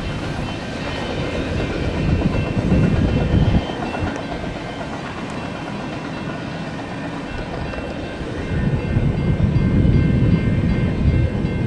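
A train rolling past, its rumble swelling about two seconds in and again from about eight and a half seconds.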